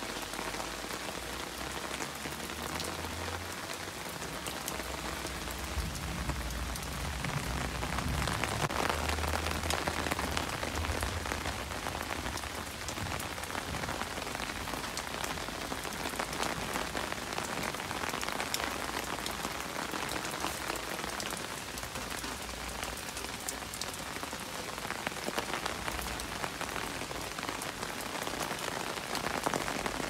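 Steady rain falling on puddles, wet grass and leaves, a dense patter of drops. A low rumble comes and goes during the first half.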